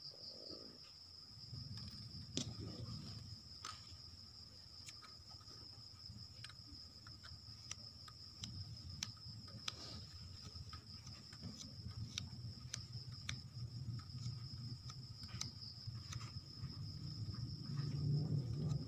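Crickets trilling steadily in the background, with low rustling and scattered small ticks from fingers rubbing clean the contacts of a flat LVDS ribbon cable.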